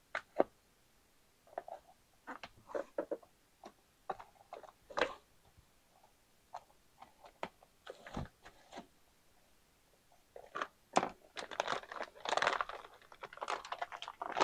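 Plastic vacuum bag around a filament spool crinkling as it is cut open with scissors and the spool is pulled out: scattered short snips and crackles that grow busier and louder about ten seconds in.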